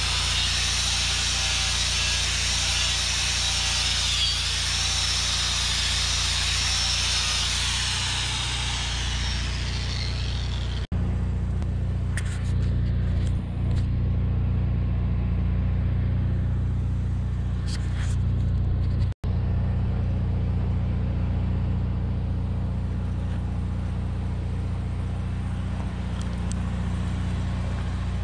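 A compact tractor's diesel engine running steadily. For about the first ten seconds a loud, high, wavering hiss sits over it, then stops at a sudden cut, leaving the engine alone.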